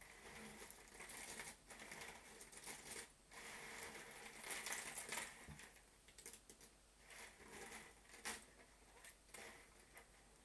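Faint, irregular rustling and clicking of cardboard jigsaw puzzle pieces being broken apart by hand, with one sharper click about eight seconds in.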